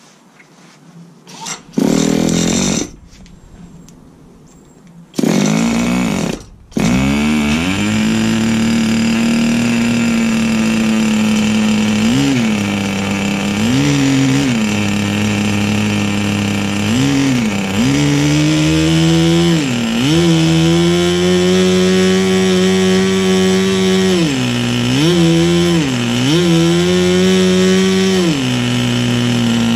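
O.S. Max 25 FP two-stroke glow-plug model aeroplane engine spun twice with an electric starter, catching about seven seconds in and then running at high revs. Its pitch dips and recovers several times as the needle valve is adjusted.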